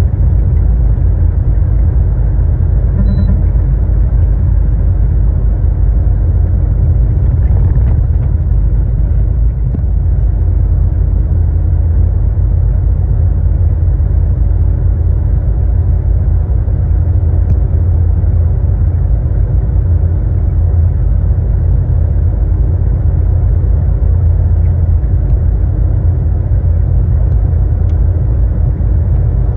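Truck cab interior at highway speed: a loud, steady low rumble of engine and road noise.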